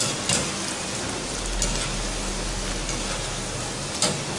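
Small zeera papri dough discs deep-frying in hot oil in a steel karahi: a steady sizzle, with a few light clicks, three times, of a wire skimmer against the pan.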